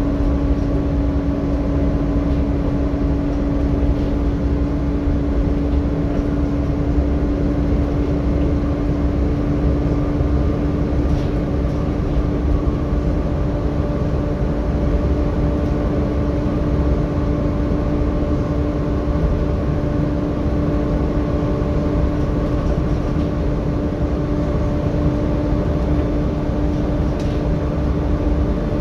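Volvo B7TL double-decker bus on the move, heard from inside the passenger saloon: steady low engine and road noise with a constant whining tone from the engine's cooling fan over it.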